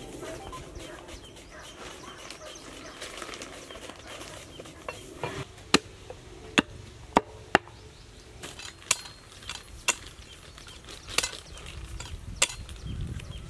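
Heavy meat cleaver chopping a raw goat leg on a wooden block, cutting through meat and bone. About eight sharp chops at uneven gaps start about six seconds in.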